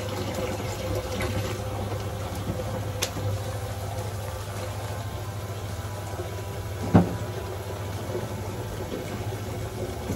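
Bathroom sink tap running steadily into the basin, with water splashing out of a plastic bottle being rinsed under it. One sharp knock about seven seconds in.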